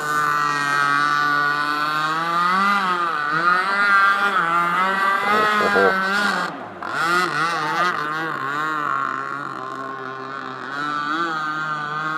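Gas-powered RC boat's two-stroke engine running on the water, its pitch rising and falling as the throttle is worked, with a brief drop-out about two-thirds of the way through.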